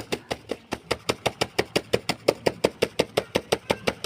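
Rapid, even knocking, about seven sharp strikes a second, each with a short ring.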